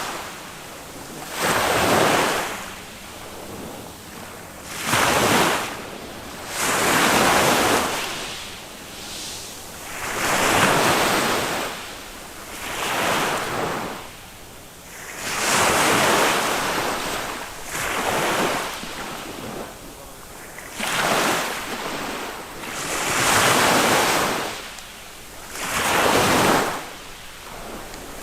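Small waves of a calm Mediterranean sea breaking and washing up a sandy beach, a surge of surf every two to three seconds with a low hiss in between.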